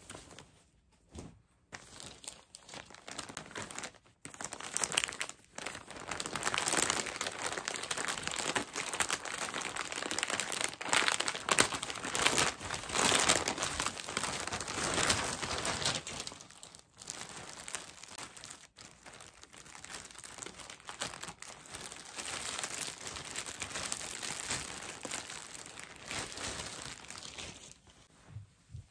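Grey plastic mailer bag crinkling and rustling as it is handled and opened, with some tearing; loudest through the middle of the stretch, then quieter rustling toward the end.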